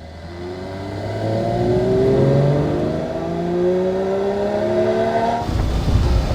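2023 Porsche 911 GT3 RS's 4.0-litre naturally aspirated flat-six accelerating, its engine note climbing steadily in pitch and getting louder for about five seconds. Near the end the sound switches abruptly to a heavier, rougher rumble at a steadier pitch.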